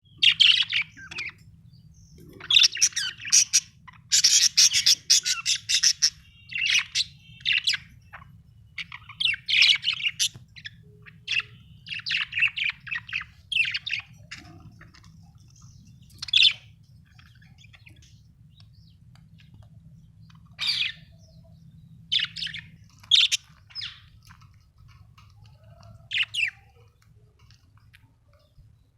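Pet budgerigars chirping and chattering in quick, sharp bursts. The calls are busiest in the first half and grow sparser toward the end, over a faint steady low hum.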